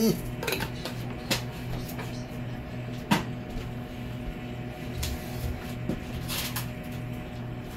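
Scattered knocks and clatter of kitchen items being handled, the loudest about three seconds in, over a steady low hum.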